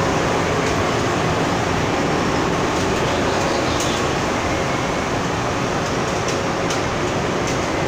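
Krantz stenter (heat-setting tenter frame) running, a steady even machine noise with a faint constant hum and a few light ticks in the middle.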